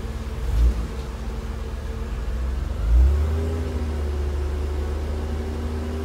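The electric auxiliary cooling fans of a 1992 Mercedes 300E W124 running at high speed over the M103 straight-six idling with the AC on. There is a thump about halfway through, and then a new steady whirring tone rises and settles as something else kicks in.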